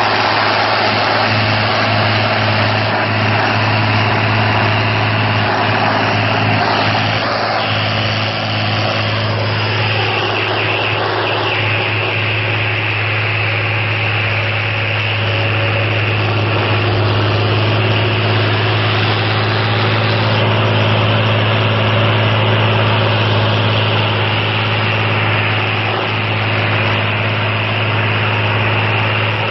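Torpedo 9006A tractor engine running steadily at working revs while pulling a subsoiler through the ground.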